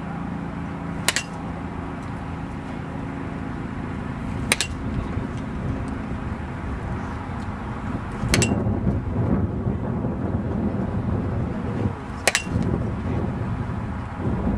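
A bat striking a tossed ball four times, one sharp crack every three to four seconds, over a steady low rumble of wind on the microphone that grows stronger about halfway through.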